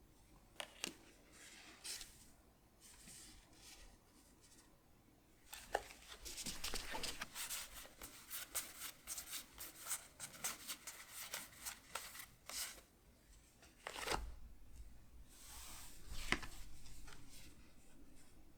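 Pokémon trading cards and booster-pack wrappers being handled: a few light taps, then a long run of quick crisp flicks and rustles as cards are slid through the hands, a firmer knock about fourteen seconds in, and a soft crinkling swish near the end.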